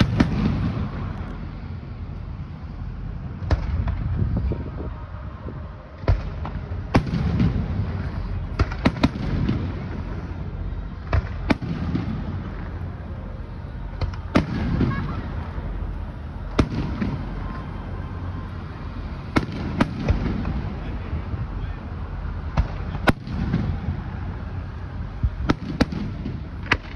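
Aerial fireworks bursting: sharp bangs at uneven intervals, often two in quick succession, each followed by a low rolling boom that echoes on for a second or two.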